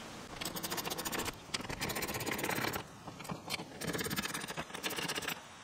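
Small socket ratchet clicking in quick runs with short pauses while 7 mm bolts under the dash are loosened.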